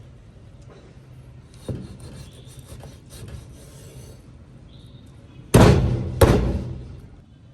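Scraping and rubbing on a wooden chopping board, then two loud chops less than a second apart about two-thirds of the way in, each fading out slowly.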